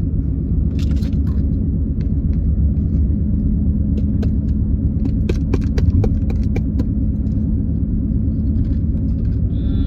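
Road noise inside a moving car: a steady low rumble from the engine and tyres, with a run of light clicks around the middle.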